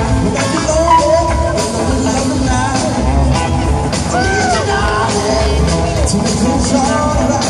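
Live rock band playing, with electric guitars, drums and singing over it.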